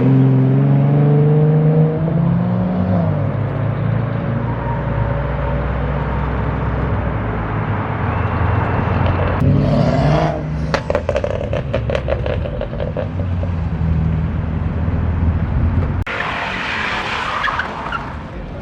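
Modified car engines revving hard and then running on, with a run of sharp pops from about ten to thirteen seconds in and a brief tyre screech near the end.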